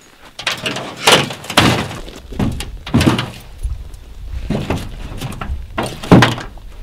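Packs and gear bags knocking and scraping against the hull of an aluminum canoe as they are loaded in: several hollow thuds, the loudest about six seconds in.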